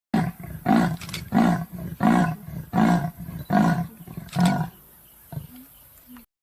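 An animal calling: about seven deep calls in an even rhythm, a little under one a second, then the calls stop and only faint sound remains until it cuts off.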